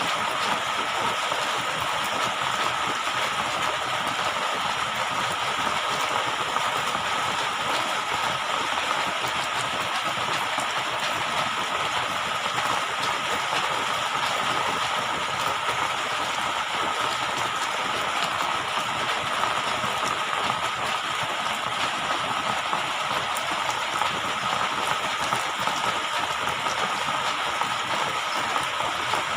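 Steady rushing water noise that does not change, with a faint constant whine running through it.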